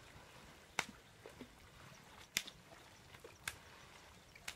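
Four sharp, short knocks or slaps, spaced unevenly about a second apart, over faint outdoor background.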